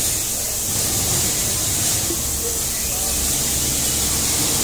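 Steady hiss, strongest in the high range, with a low hum underneath, holding an even level throughout.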